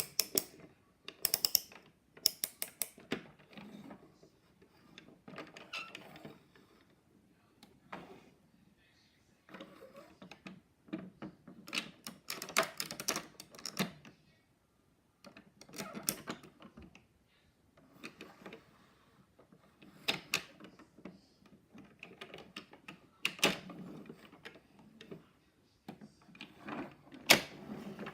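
Plastic toy construction vehicles being handled and played with: irregular bursts of clicking, clacking and rattling, with a few sharper clacks and short pauses between.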